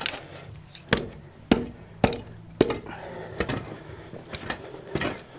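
Shovel blade chopping into hard dirt: sharp strikes about every half second over the first few seconds, then lighter, quicker scrapes and hits.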